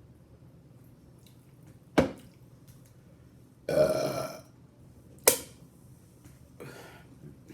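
A woman's burp lasting under a second, about four seconds in, with a sharp click a couple of seconds before it and another just after.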